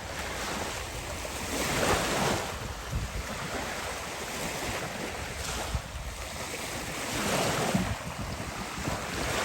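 Ocean surf washing on the shore, with wind buffeting the microphone; the wash swells louder twice, about two seconds in and again near the end.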